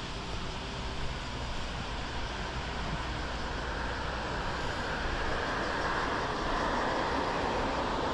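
Road traffic: steady tyre and engine noise of cars passing on the road below, swelling a little louder over the second half as a car goes by.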